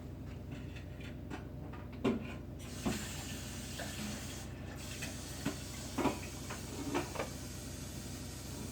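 A few short clunks of a plastic water tank being handled, with a faucet starting to run about two and a half seconds in, a steady hiss of water.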